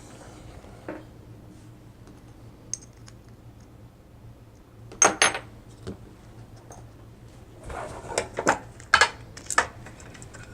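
Small metal parts of a lock being handled and worked with tools, making clicks and clinks: a sharp double click about halfway, then a run of clicks and rattles near the end.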